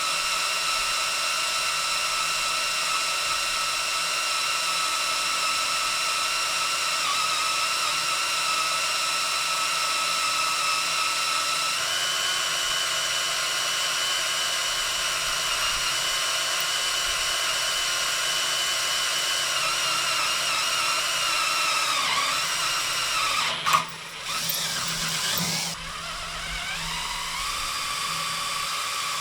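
Cordless drill drilling into steel: a steady motor whine that steps up in pitch about halfway through, then sags under load. A sharp click comes near the end with a brief stop, and the drill then runs on at a lower, steady whine.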